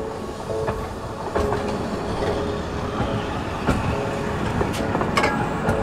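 Linke-Hofmann-Busch articulated tram passing close by, its wheels clacking over the rails with a run of irregular sharp clicks over a steady rumble, the clicks coming more often in the second half.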